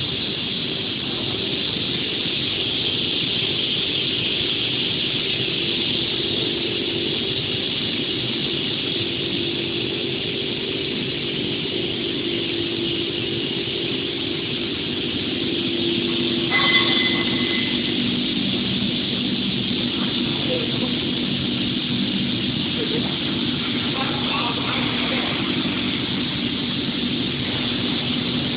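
EPE foam pipe extrusion line running: a steady machine hum from its electric motors and drives, with a brief high squeal about seventeen seconds in.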